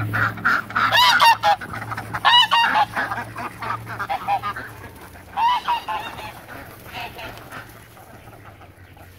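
Domestic ducks quacking: a run of loud calls in the first six seconds, then fewer and fainter ones. A steady low hum lies under the first half.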